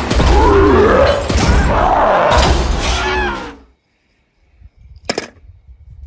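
A cartoon character yelling in long, sliding cries over a low rumble. It cuts off suddenly about three and a half seconds in, and a single sharp click follows about five seconds in.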